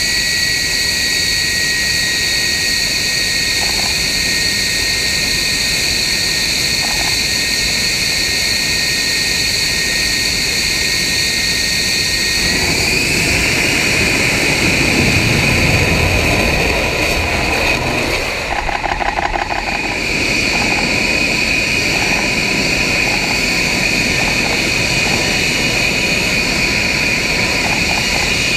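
F-35B jet engine running in short-takeoff/vertical-landing mode with the lift fan engaged, giving a loud, steady high whine. About twelve seconds in, the whine steps up in pitch and a deep rumble builds as the engine powers up.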